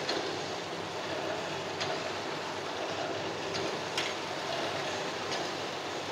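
Silk reeling machine running, a steady mechanical rattle of its turning reels and shafts with sharp clicks every second or two, the loudest about four seconds in.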